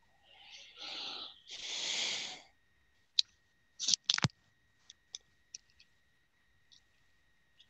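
Two breaths close to a microphone, then a run of sharp clicks, the loudest about three to four seconds in, over a faint steady high-pitched whine.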